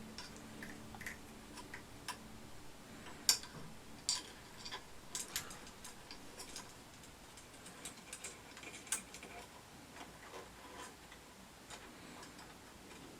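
Scattered light clicks and taps, irregular and a few a second, from the timing belt and the plastic and metal parts of an Ender 3 3D printer being handled as the belt is threaded.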